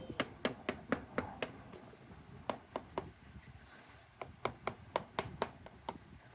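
Rapid sharp taps or clicks, about four or five a second, in runs of several with short pauses between them.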